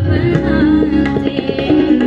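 Ghazal music: a woman singing a wavering melodic line over held harmonium notes, with tabla strokes throughout.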